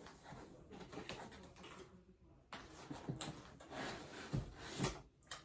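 Packaging being handled: scattered knocks and rustling as a 3D printer part is worked loose from its styrofoam inserts, with styrofoam rubbing against the box.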